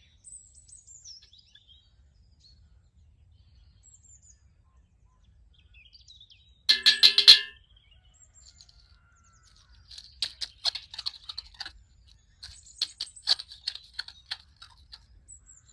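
Birds chirping and twittering, with a loud burst of calls about seven seconds in and quick runs of chirps near the end.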